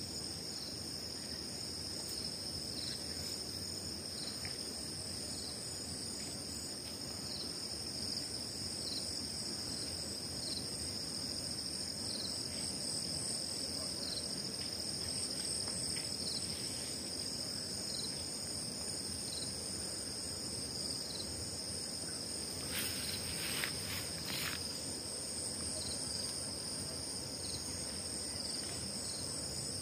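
Steady, high-pitched insect chorus from the field, with a faint short chirp repeating about every second and a half. A few brief clicks come about 23 seconds in.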